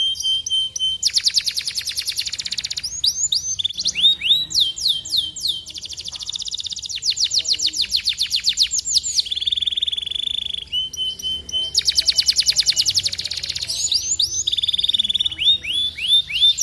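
Canary singing a long, continuous song: rapid trills of quickly falling notes that switch to a new phrase every second or two, with a held steady whistled note just past the middle.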